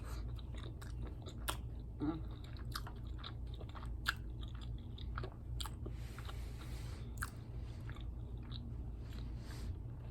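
A person chewing tacos close to the microphone, with irregular crunches and wet mouth clicks, over a low steady hum.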